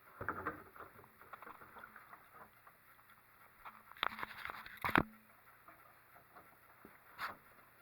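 Light clicks and rustling from handling plastic 3D printer parts as the hood lift mechanism is lowered into place. There are two sharper knocks about four and five seconds in, the second the loudest, and another knock near the end.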